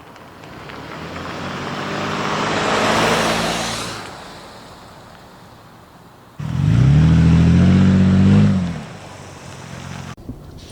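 Stock exhaust of a 5th-gen Toyota 4Runner's 4.0-litre V6 under acceleration from a take-off. A rush of engine and exhaust swells to a peak about three seconds in and fades. Then, from an abrupt start about six seconds in, a louder, closer run has the engine note climbing in pitch for about two seconds before it drops away.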